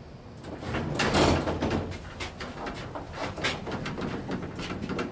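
Sliding doors of a 1975 KONE inclined traction elevator moving, loudest about a second in, followed by a run of irregular clicks and knocks with a faint high-pitched whine underneath.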